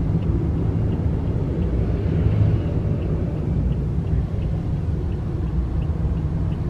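Steady low road rumble heard from inside a moving taxi, engine and tyres, with a faint regular ticking over it.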